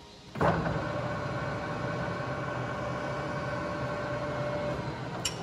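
Dashin Champion 1550 lathe starting up: the 5.5 kW motor and headstock gearing come on suddenly about half a second in and run steadily with a high whine, then wind down near the end, followed by a sharp click.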